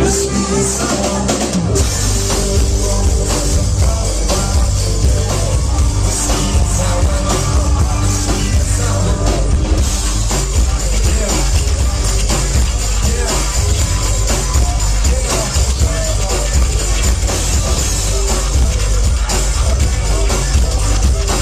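Live rock band playing loud, with electric guitar and a drum kit. The full band comes in heavily about two seconds in.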